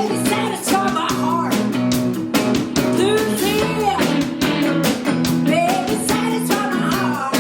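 Live rock song: guitar played to a steady beat, with a voice singing over it.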